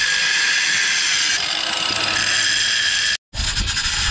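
Cordless angle grinder running with a steady high whine, grinding down a metal key held in locking pliers to make it fit a 1/8-inch keyway. The sound breaks off abruptly about three seconds in.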